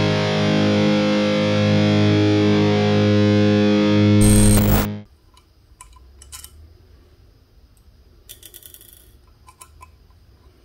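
A distorted electric guitar chord rings for about five seconds and cuts off abruptly. Faint metallic clicks follow as an L-shaped hex key is worked in the clamp bolts of a bicycle stem.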